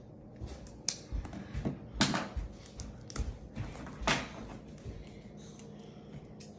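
Fingers picking and scratching at the plastic shrink-wrap on a card-game box, giving irregular crinkles, scrapes and small taps, the strongest about one, two, three and four seconds in.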